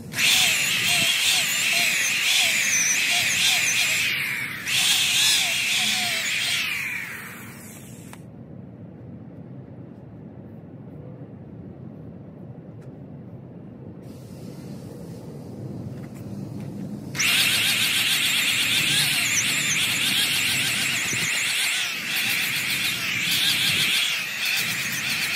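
Power sander grinding a tire's rubber sidewall smooth to prepare it for glued-on letters, with a high wavering squeal. It runs for about seven seconds, stops for about nine seconds, then starts again.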